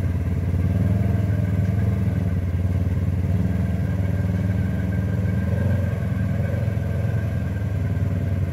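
Side-by-side UTV engine running steadily at low, even revs.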